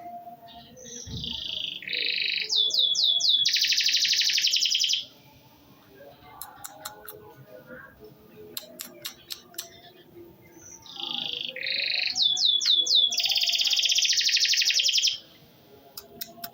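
Domestic canary singing in two loud bursts of song, each opening with a few warbled notes, then four quick sweeping notes and a long rapid trill; faint clicks in the pause between the bursts.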